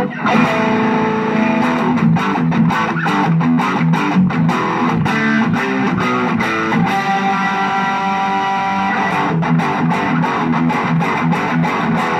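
Electric guitar played through the distorted channel 1 of a Blackstar HT-Metal valve distortion pedal and an amp: a continuous heavy distorted riff of picked chords and notes.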